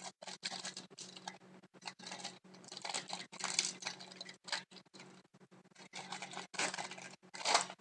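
Wrapper of a hockey trading-card pack crinkling in irregular bursts as it is handled and opened.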